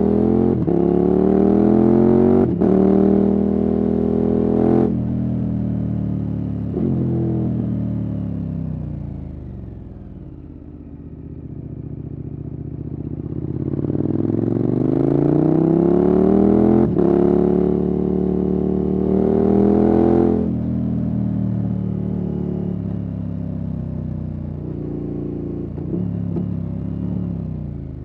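KTM 1290 Super Adventure S V-twin through an aftermarket Wings exhaust, accelerating through the gears with a brief break at each upshift. The engine note falls away as the bike slows about a third of the way in, then climbs through two more upshifts and eases off near the end.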